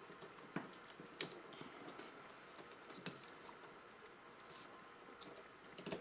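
A few faint, sharp clicks and small handling noises, the loudest about a second in, as fingers work the plastic start thermistor off the terminals of a small refrigerator compressor.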